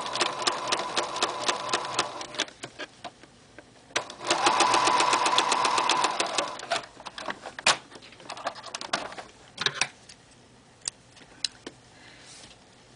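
Electric computerized sewing machine stitching in two runs: a fast even rattle of stitches that stops about two seconds in, then a second, louder run from about four to nearly seven seconds in, as lycra binding is sewn into a seam. Scattered single clicks and taps follow.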